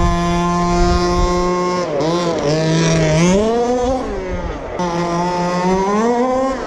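HPI Baja RC buggy's small two-stroke petrol engine running at high revs, its pitch holding steady, then dipping and climbing again twice as the throttle is worked.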